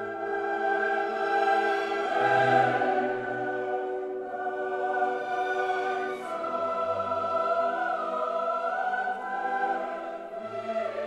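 Background choral classical music: a choir singing long held notes.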